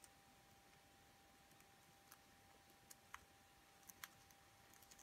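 Near silence, with a few faint scattered clicks from a needle, thread and satin ribbon being handled while gathers are sewn into the ribbon.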